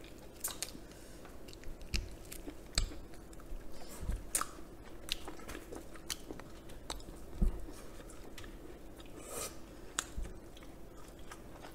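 Close-miked eating sounds: chewing and biting into fried chicken and scallions, with scattered small crunches and clicks and a few soft low thumps.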